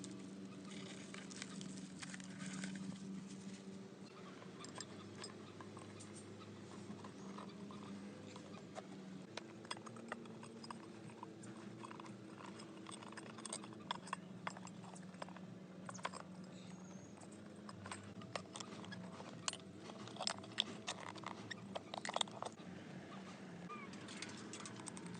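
Irregular light clicks and taps, more frequent in the second half, over a steady low hum.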